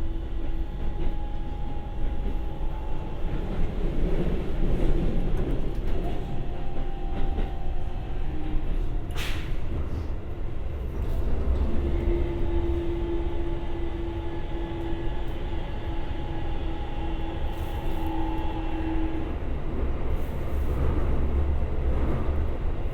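Keikyu 1000 series train heard from inside a motor car: its Siemens GTO-VVVF inverter and traction motors give a steady whine in a couple of held tones that drop out and return, over the rumble of wheels on the track. A brief hiss sounds about nine seconds in.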